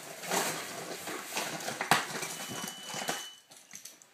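Irregular rustling and knocking of hand handling, with one sharp click about two seconds in.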